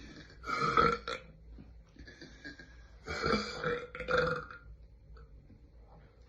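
A young woman burping loudly twice: a short burp about half a second in, and a longer, broken burp about three seconds in.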